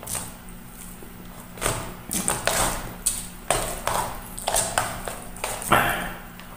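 Close-miked chewing and mouth sounds: a run of short wet smacks and clicks, about two a second, from a mouthful of chicken feet adobo and rice. A faint steady hum sits underneath.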